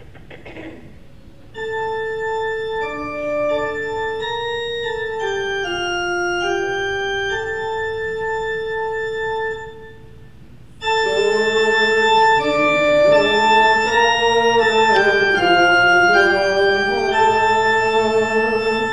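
Organ playing a slow hymn tune in long held notes: first a single melody line, then, after a short pause about ten seconds in, the tune again in full chords.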